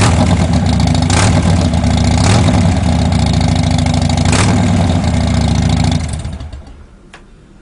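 2009 Harley-Davidson Dyna's 103-cubic-inch V-twin running with a few sharp pops over it, then switched off about six seconds in and dying away. A single small click follows.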